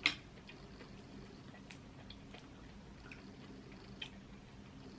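Quiet eating sounds: a sharp click at the start, then a few faint, wet mouth smacks and clicks of chewing seafood boil in sauce over a low room hum.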